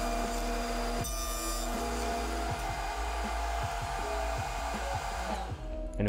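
Table saw with a dado blade stack running steadily, a constant motor whine with rushing noise as a maple board is fed through to cut a tongue. The noise cuts off shortly before the end.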